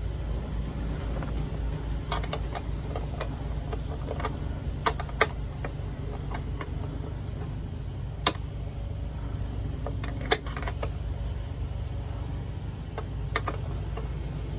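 Scattered sharp metallic clicks and taps as a cable's ring terminal and its screw are fitted by hand to a van's bare metal body to make an earth connection, over a steady low rumble.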